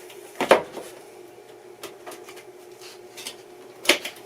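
Knocks and clatters of a cardboard box being handled and opened with a knife, with a loud knock about half a second in and another near the end. A steady hum runs underneath.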